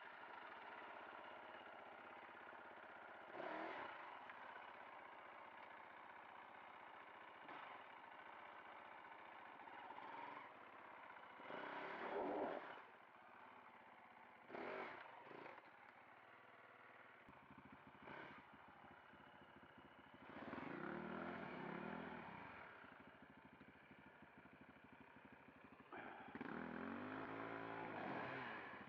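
Off-road dirt bike engine running and revving up and down, with clattering knocks now and then.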